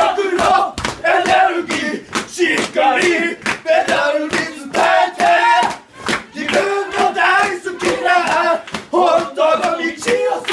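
A group of men shouting together in loud, rough chorus, with frequent sharp claps throughout.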